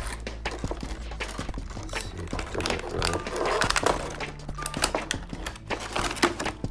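Thin clear plastic blister tray of an action-figure package being handled and flexed, crackling and clicking irregularly.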